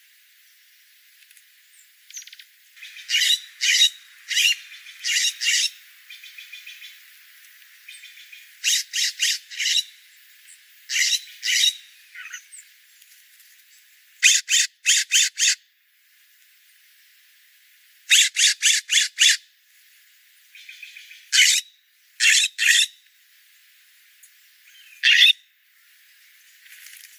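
Wild birds calling in bouts of quick, sharp chirps, each run of three to six notes, repeated about seven times with short pauses between, over a faint steady hiss.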